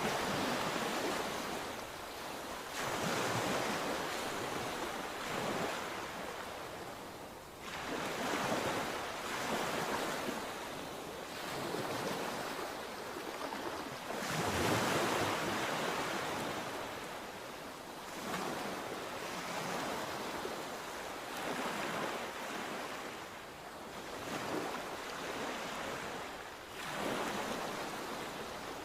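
Sea waves breaking and washing up the shore, one surge every few seconds, with a steady hiss of surf between them. Wind blows on the microphone at times.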